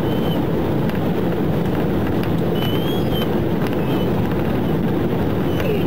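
Steady road and engine noise of a police cruiser driving at speed, heard from inside the car, with a brief faint high tone about halfway through.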